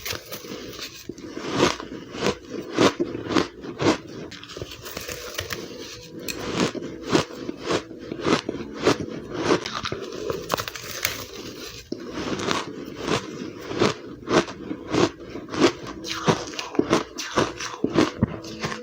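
Close-up crunching of ice being bitten and chewed: an irregular run of sharp crunches, about two a second.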